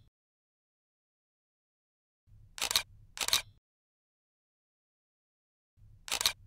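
Sharp clicks in quick pairs over dead silence: a double click a little under three seconds in, and another click near the end.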